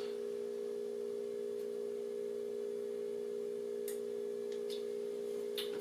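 A steady low hum made of a few steady tones, with a faint light click about four seconds in and another near the end.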